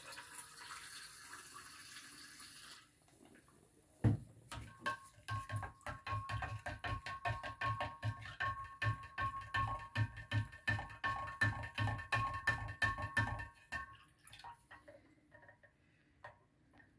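Caustic soda solution squirted from a squeeze wash bottle into a glass jar of salt water for a few seconds, as a hiss. Then a spoon stirs the solution, clinking against the glass jar about three times a second for roughly ten seconds, with the jar ringing. This is the stage where lye is added to bring the brine's pH up.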